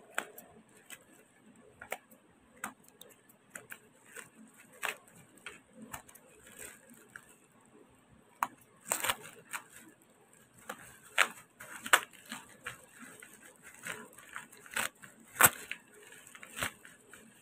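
Plastic mailer and bubble wrap crinkling and rustling as hands unwrap a small parcel: irregular crackles, with louder bursts in the second half.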